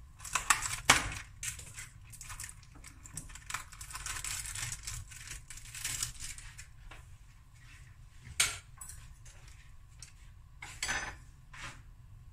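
Butter sizzling and crackling as it melts in a hot stainless steel frying pan, broken by a few sharp knocks and clinks of kitchenware, the loudest about a second in and another about two-thirds of the way through.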